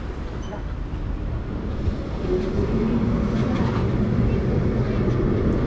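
Carris Remodelado heritage tram, a 1930s-built streetcar, rolling in along the street rails towards its stop. Its rumble grows louder about two seconds in as it draws near.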